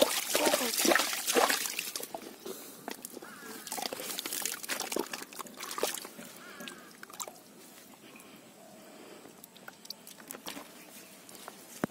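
Hand squelching and sloshing through wet mud and water in a hole while grabbing an eel, loudest in the first two seconds and then dropping to quieter, scattered wet squelches.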